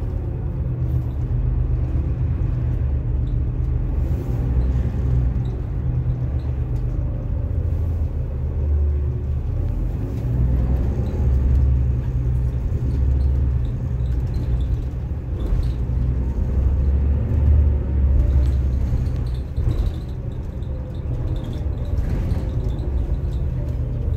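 Cabin sound of a 2005 New Flyer DE40LF diesel-electric hybrid bus running: a continuous low drivetrain rumble that swells and eases.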